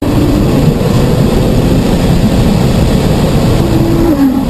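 A car being driven hard, heard from inside the cabin: loud, steady road and wind noise with a faint engine note under it that drops about four seconds in.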